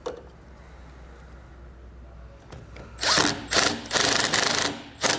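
Cordless impact driver running in four bursts, two short, one of nearly a second and a last short one near the end, as it drives in and tightens a bolt.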